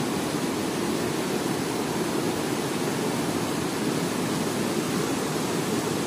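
Fast mountain river rushing over rocks in white-water rapids, a steady, even rush of water.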